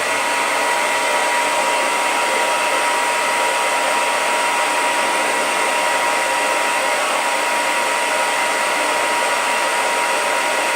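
Hair dryer blowing steadily at a fidget spinner to spin it: an even rush of air with a thin, steady whine over it.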